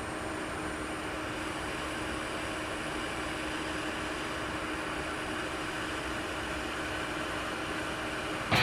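Steady fan-like hiss and drone with a faint low hum. Guitar music cuts in loudly near the end.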